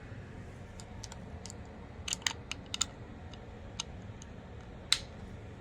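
Scattered small plastic clicks and taps from handling a handheld lock programming unit and its connector at the door lock, about a dozen in all, bunched together about two seconds in, with the sharpest click near the end.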